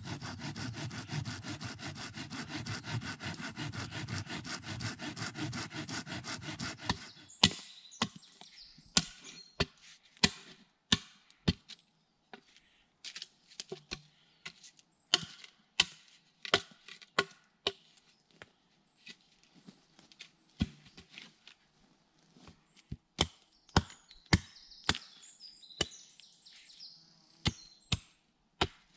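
A hand saw cutting through a dead branch with quick, even strokes for about seven seconds. Then a hatchet strikes an upright wooden stake standing on a chopping stump, in sharp blows at an uneven pace.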